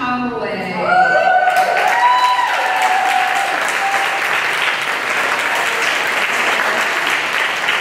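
Audience applauding, swelling in about a second and a half in and then holding steady.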